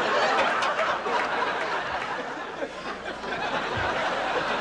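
A crowd of many voices murmuring and laughing together, loudest about the first second and easing slightly after.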